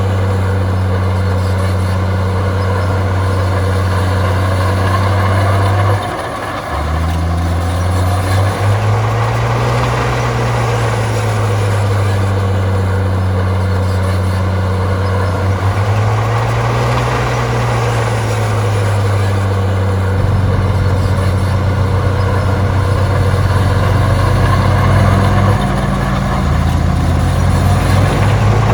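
Heavy diesel engine of earthmoving machinery running under load. Its note dips briefly about six seconds in, then rises and falls twice as the throttle is worked, and turns rougher from about twenty seconds on.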